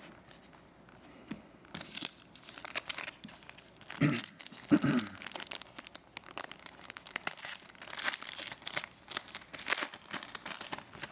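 Foil wrapper of a trading card pack being torn open and crinkled in the hands, with irregular crackling and tearing throughout and two louder handling sounds about four and five seconds in.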